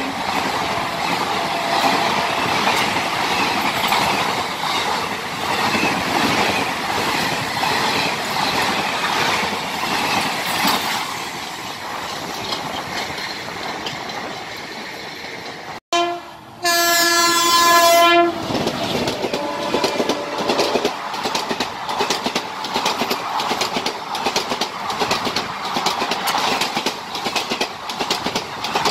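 Indian Railways express coaches rushing past at speed, wheels clattering over the rail joints. About sixteen seconds in, a locomotive horn blasts for about a second and a half, then a second express passes with a fast, steady clickety-clack of wheels.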